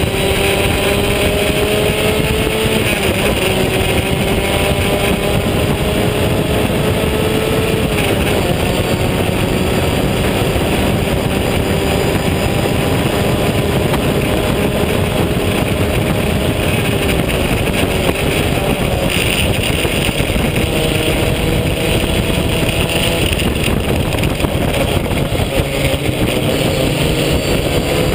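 Open-wheel race car engine heard from onboard, held at high revs under racing load. Its pitch climbs slowly and dips briefly every few seconds as the driver lifts or shifts, over a steady rush of wind and road noise.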